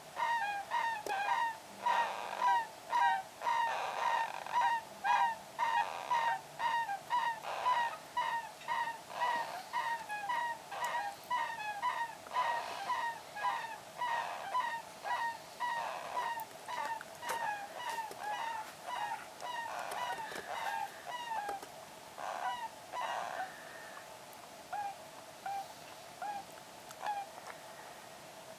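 Three-week-old baby hamsters squeaking in their sleep, which the owner calls snoring and whimpering. Short high squeaks come about twice a second and grow fainter and sparser near the end.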